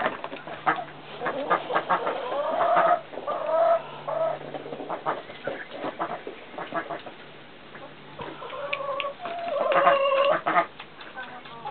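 Chickens clucking in two bouts, one about three seconds in and another around nine to ten seconds, over a run of short sharp clicks.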